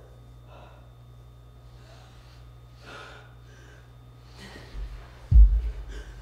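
A person on the floor gasping and breathing hard in separate breaths. About five seconds in, the body rolls over on the rug with a heavy low thud and some shuffling.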